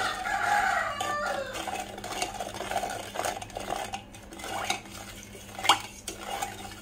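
Metal spoon stirring sweetened coconut milk in a stainless steel pot: a swishing scrape at first, then scattered clinks against the pot, with one sharp clink late on.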